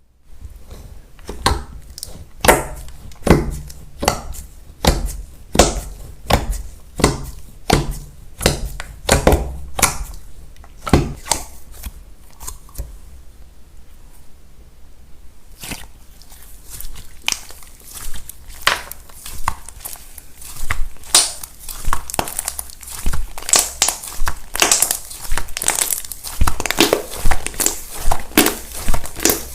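Slime being squished and pressed, giving sharp crackling clicks about once or twice a second, then, after a quieter pause, a denser run of crinkly crackles.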